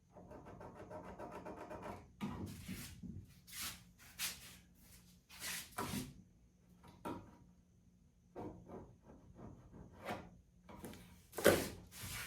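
Rubbing and scraping on wooden aircraft parts: a steady rough rasp for about two seconds, then about ten separate, unevenly spaced scraping strokes, the loudest near the end.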